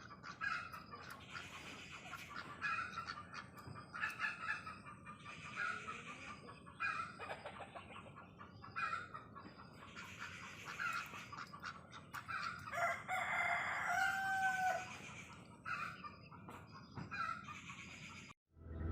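Free-ranging country chickens clucking and calling on and off, with a rooster crowing once, louder, about thirteen seconds in.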